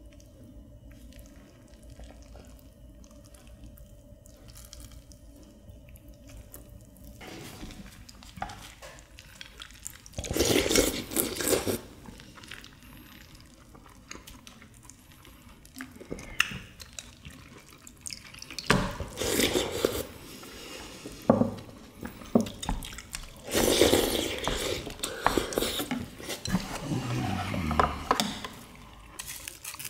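Samgyetang being eaten: bouts of wet, liquid eating sounds with dishes and utensils clinking, coming three times after a quiet start.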